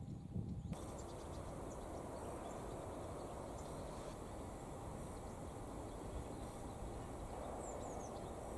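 Steady rushing outdoor background noise that starts abruptly about a second in, with a few faint, high bird chirps near the end.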